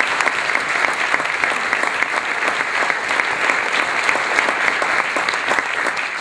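Theatre audience applauding steadily, a dense crowd of clapping hands.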